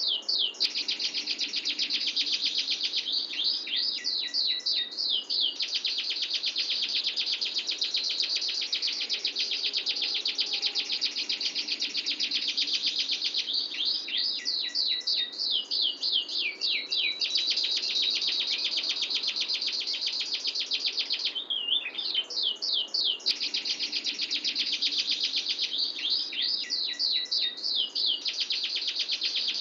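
Domestic canary singing a long rolling song: a dense, unbroken fast trill, broken every several seconds by runs of quick sweeping notes.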